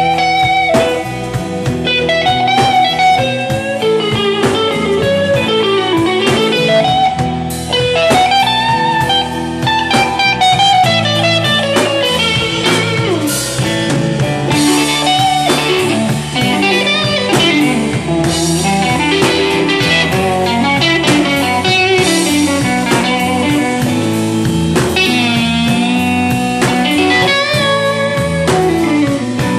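Live blues band playing. Electric guitar leads with bending, sliding notes over a steady bass and drums.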